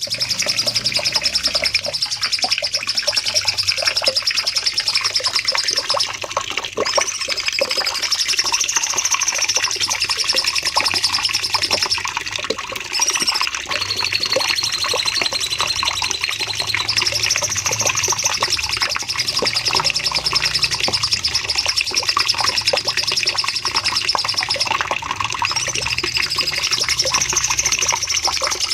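A cucak cungkok singing long, unbroken phrases of a high, very rapid trill. Each phrase is held for several seconds and pauses only briefly between them, and one phrase about halfway through sits a little lower in pitch.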